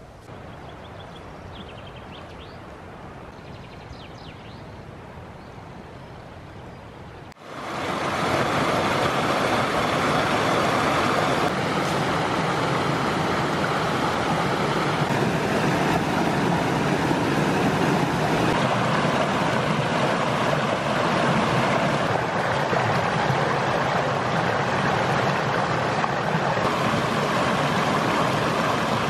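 Small mountain stream rushing over rocks, a steady water noise that jumps much louder about seven seconds in and stays loud.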